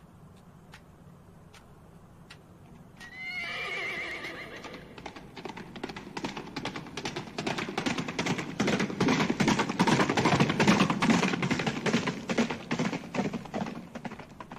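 A horse whinnies with a falling, wavering call about three seconds in, then hooves gallop in rapid beats that grow louder, peak about ten seconds in, and ease off toward the end.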